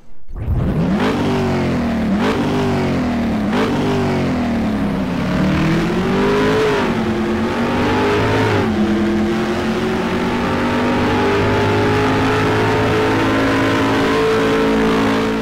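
Car engine revving hard through the gears: its pitch climbs and drops sharply at three quick shifts in the first four seconds, wavers, then holds a steady high drone.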